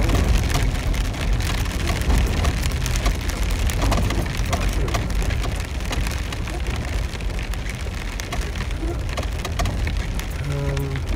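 Rain pattering on a vehicle's roof and windshield, heard from inside the cab, over the low steady rumble of the vehicle driving slowly on a rough dirt road.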